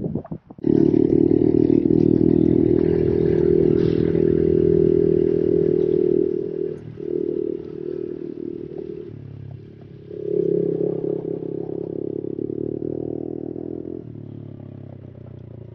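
Honda CRF110 pit bike's small single-cylinder four-stroke engine running hard under throttle while riding, coming in loud about a second in. The throttle eases off around six seconds and again around nine, picks up again about ten seconds in, and drops back near the end.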